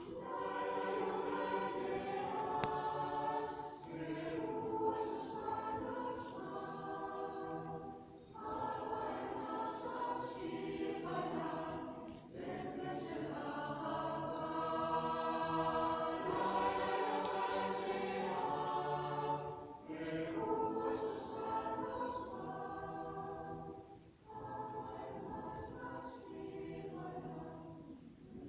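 Choir singing in a large cave, in sung phrases broken by brief pauses.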